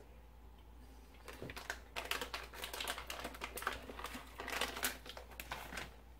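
Plastic beef jerky packet being handled, a dense run of irregular crackles and clicks starting about a second in.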